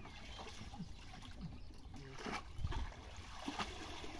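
Wet mud and shallow water sloshing as hands grope and scoop through a drained pit bottom, with a few short splashes about halfway through and near the end.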